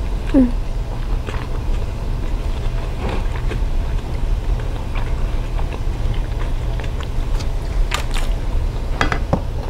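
Close-miked chewing, with scattered wet mouth clicks, over a steady low hum; a short falling tone sounds near the start.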